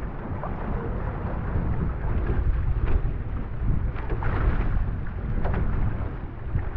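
Wind buffeting the microphone with a heavy low rumble, over water rushing and slapping against an outrigger canoe's hull as it runs downwind through choppy waves. A couple of louder splashes come about four seconds in and again a second or so later.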